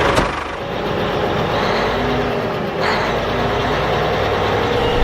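Vehicle engine running steadily, with a short click about three seconds in.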